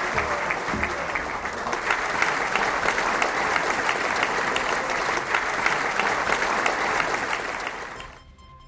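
Audience applauding: dense clapping from a large crowd, which fades out near the end.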